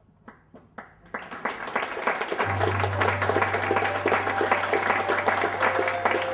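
A few single claps, then audience applause building from about a second in. Music comes in under it from about three seconds, with held notes and a low steady tone.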